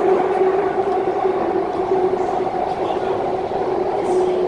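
MTR Kwun Tong Line C-Train metro car running at steady speed, heard from inside the car: a constant motor whine holding one pitch over the even rumble of the wheels on the rails.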